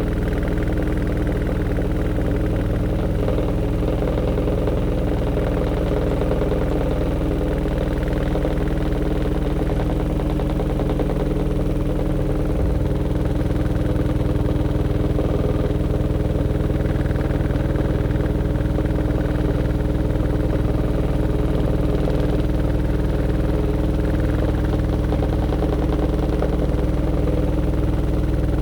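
Aqua AQW-DX12M front-loading drum washing machine spin-drying its load, set to 1200 rpm. It makes a steady motor and drum hum with several fixed tones, picked up through the machine's top panel. About halfway through, the lowest hum shifts and the sound gets slightly louder.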